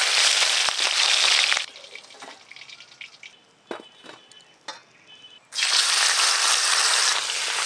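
Hilsa fish heads sizzling in hot oil in a steel wok, the hiss stopping suddenly after about a second and a half. A quieter few seconds with a few light clicks follow. Then a piece of hilsa roe sizzles loudly in the oil from about five and a half seconds in.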